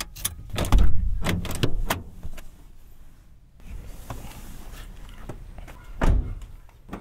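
Clicks and rustling as the driver's door of a Toyota car is opened and someone climbs out, then the door shut with one solid thud about six seconds in.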